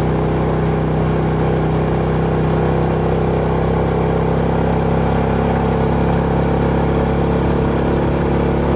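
Vehicle engine running steadily while driving along a gravel road, with a constant drone and road noise.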